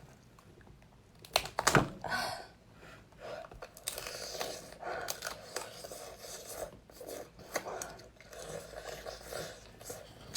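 A person eating close to the microphone, chewing and crunching food, with a few sharp crackles about a second and a half in.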